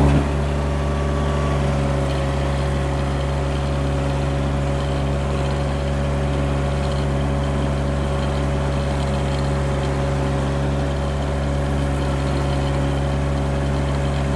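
Derette V1000 mini skid steer's engine, just started, settling to a slightly lower speed at the very start and then idling steadily.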